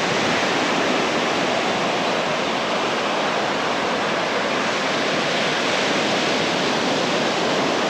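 Sea surf washing onto a beach: a steady, even hiss of breaking water.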